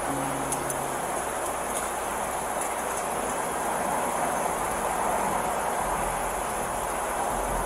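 Steady outdoor background hiss through a body camera's microphone, with a thin, constant high insect buzz such as crickets above it and a broad rush that swells slightly midway.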